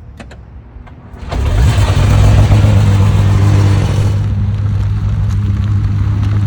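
Czinger 21C's twin-turbo V8 being started: a few light clicks, then about a second in the engine fires with a loud flare and from about four seconds in settles into a steady idle.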